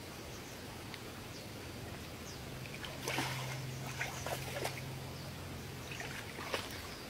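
A hooked fish splashing and thrashing at the water's surface, a run of sudden splashes starting about three seconds in. A faint steady low hum runs under the middle of it.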